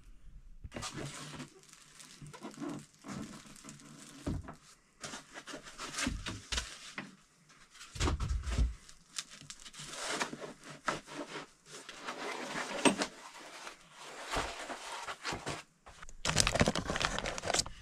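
Plastic wrapping and foam packing crinkling and rustling in irregular bursts, with a few knocks, as the packing is handled and pulled out of a resin 3D printer.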